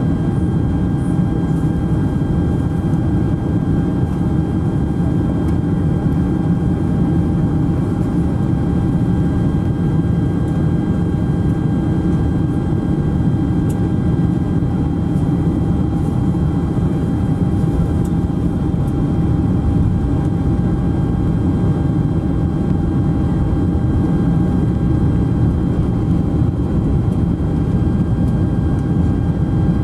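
Steady cabin noise inside a Boeing 747SP airliner in flight with its flaps extended: a low rumble of jet engines and airflow, with a faint steady whine above it.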